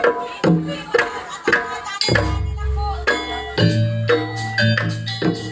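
Live traditional percussion ensemble music: drums and struck pitched instruments beating about twice a second, joined about two seconds in by a held deep bass tone.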